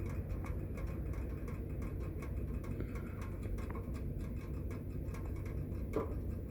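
Faint, even ticking, several ticks a second, over a low steady hum.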